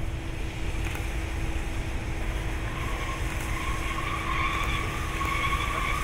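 Steam locomotive CFL 5519 rolling slowly with a low rumble; about halfway in, a high metallic squeal from its wheels on the rails begins and grows louder.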